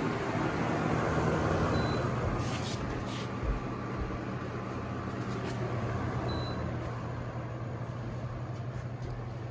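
Vornado whole-room air circulator fan running steadily: an even rush of air over a low motor hum, with a few faint ticks near the middle.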